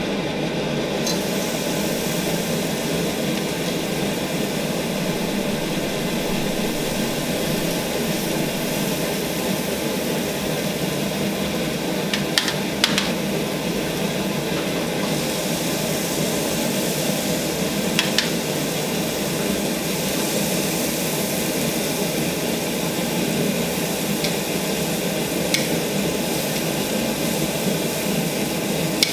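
Steak and vegetable kebabs on metal skewers sizzling on a hot electric stovetop grill, the sizzle growing brighter about halfway through as more go on. A few sharp clicks of metal tongs against the skewers and grate.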